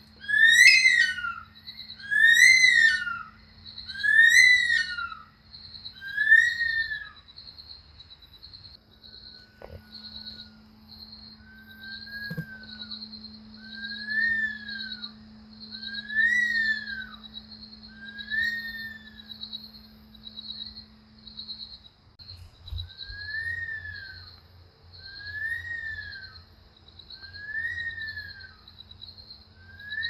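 Bush stone curlew calling: a series of long whistled calls, each rising then falling in pitch, about one every two seconds, loud at first and then fainter. A steady high pulsing trill runs behind them.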